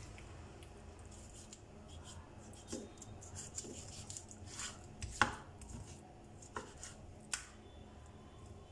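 Large kitchen knife slicing raw chicken breast on a wooden cutting board, with a scatter of short knocks and clicks as the blade meets the board; the loudest comes a little past the middle.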